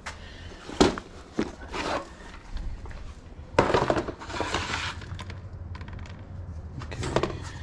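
Knocks and clatter of household items being shifted and handled in a small room, with a longer scraping, rustling stretch in the middle.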